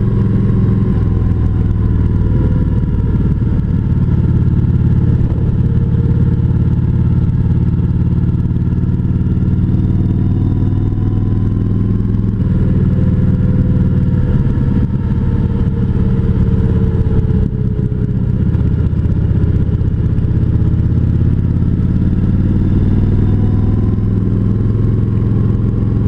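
Kawasaki Voyager 1700's V-twin engine running steadily on the road, its pitch sagging and climbing again a few times as the speed changes.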